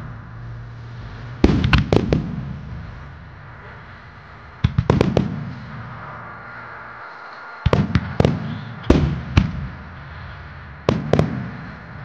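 Aerial firework shells of a starmine barrage bursting overhead: five quick clusters of sharp bangs, each cluster trailing off in a rumble.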